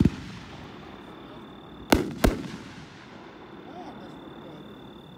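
Aerial shells from a 12-shot 500-gram cake firework going off: a sharp bang right at the start, then two more bangs about two seconds in, a third of a second apart, each fading off.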